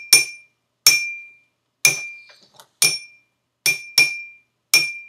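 A small hard object struck about seven times at roughly one-second intervals, two strikes coming close together near the end. Each strike is a sharp clink that rings briefly at the same high pitch.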